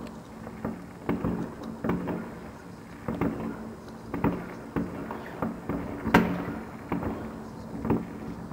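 Aerial fireworks bursting across a city: an irregular string of bangs and crackles, a couple or more a second, with the sharpest bang about six seconds in.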